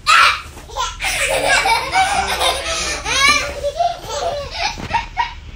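Young children laughing and vocalizing while they play, loudest at the very start, with a quick run of laughs about three seconds in.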